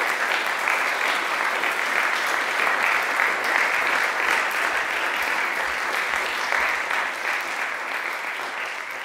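Audience applause in a concert hall, a dense, steady clapping that starts to die away near the end.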